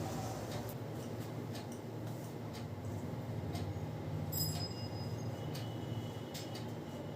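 Hands working a head massage: scattered light clicks and taps from fingers on the hair and scalp over a steady low hum, with a brief high tone about four seconds in.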